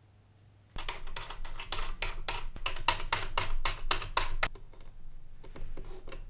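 Packaging being handled during an unboxing: a quick, irregular run of sharp clicks and taps, several a second. It starts suddenly just under a second in and thins out for a moment before picking up again near the end.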